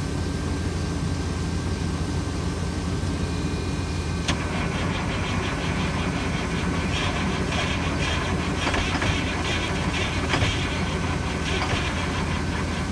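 Caterpillar 3176B inline-six diesel in a semi truck being cranked on a cold start at 18°F, after three weeks of sitting and on a jump. A sharp click comes about four seconds in, followed by a rhythmic cranking beat over a steady low drone.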